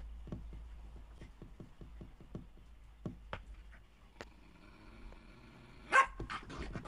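Faint clicks and cloth rustling, then a small poodle gives one short, sharp bark about six seconds in, the loudest sound.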